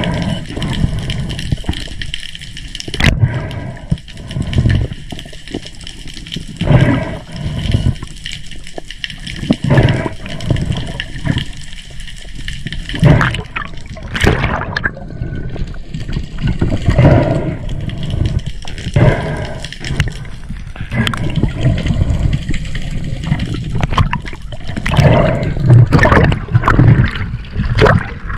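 Water rushing and gurgling around an underwater camera as a spearfisher swims, in irregular low surges every second or two. There is splashing as the camera breaks the surface near the end.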